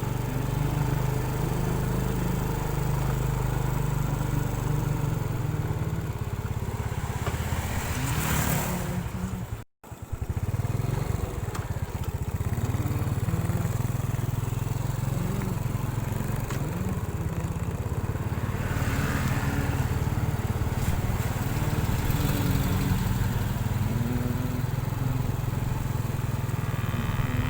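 Motor vehicle engine running steadily on the move, with a brief cut-out about ten seconds in.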